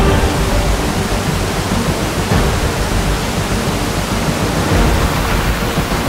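Steady rush of heavy falling water from a large waterfall, loud and close, covering every pitch from deep rumble to hiss.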